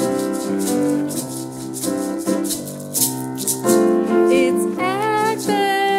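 Maraca shaken in a steady rhythm over held chords from a guitar or keyboard, playing along with a hymn-style song; a voice slides up through a sung note about four to five seconds in.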